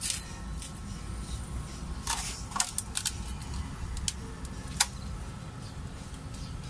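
Three-week-old Belgian Malinois puppies moving about on a tile floor: scattered small clicks and scuffs, a cluster of them a couple of seconds in and a sharper one near the end, over a low steady rumble.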